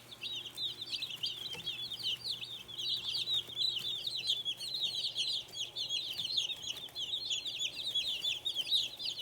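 A brood of young meat-bird (broiler) chicks peeping constantly, many short high chirps overlapping without a break.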